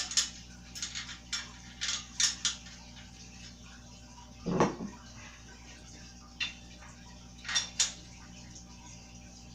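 Loose metal bike hardware, training-wheel brackets with their nuts and washers, clinking as it is handled. A quick run of sharp clinks comes in the first few seconds, a duller thump about halfway, then a couple more clinks near the end.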